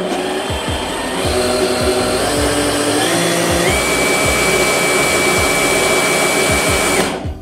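Bosch GBH18V-26D cordless brushless SDS-plus rotary hammer running with no load. Its motor pitch steps up several times as the variable-speed trigger is squeezed further, and a high whine joins about halfway. It stops abruptly near the end.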